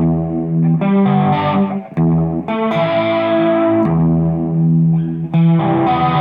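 Electric guitar played through effects with some distortion, sustained chords changing about every second or two.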